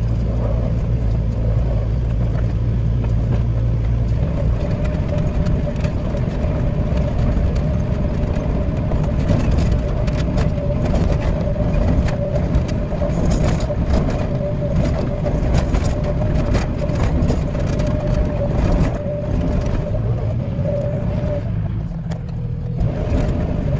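Hitachi 14-tonne excavator working, its diesel engine running steadily under load. A steady whine runs through most of the stretch, mixed with scattered knocks and rattles, and eases off briefly near the end.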